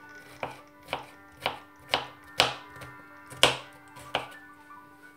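Knife chopping a cucumber into small pieces on a wooden cutting board: about seven sharp chops, roughly two a second, with a short pause near the middle.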